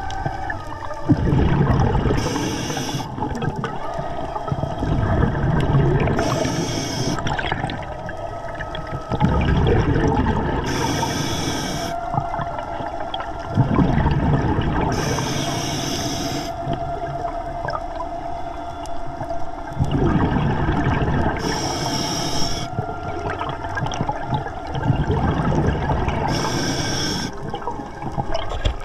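Scuba diver breathing underwater through an Atomic regulator. There are six exhalations, each a short burst of bubbles about every four to five seconds, and between them a low rumble as the diver inhales.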